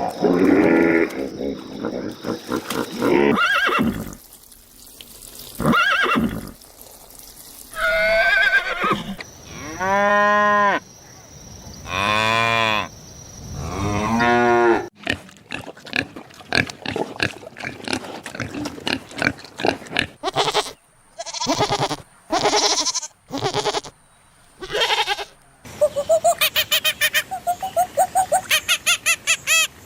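A run of different farm animal calls edited one after another: several long drawn-out calls in the first half, then shorter calls, ending in a rapid string of short repeated calls.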